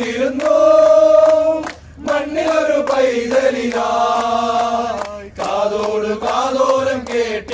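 A group of men singing together in unison, holding long notes, with hand claps.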